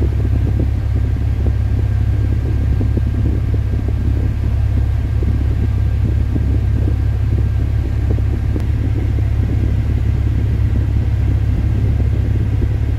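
Chevrolet Opala engine idling steadily, a low rumble heard from inside the cabin, with the electric air conditioning running.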